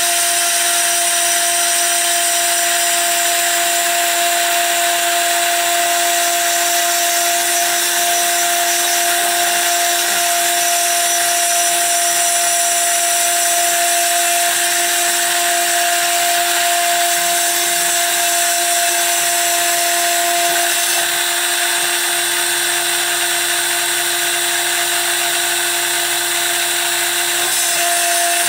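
GoCNC Hobby PCB desktop CNC router's spindle running with a steady high whine as a 1 mm end mill cuts a copper-clad circuit board. About two-thirds of the way through, the higher of its two whine tones drops out and a low hum joins for several seconds, until the tone comes back near the end.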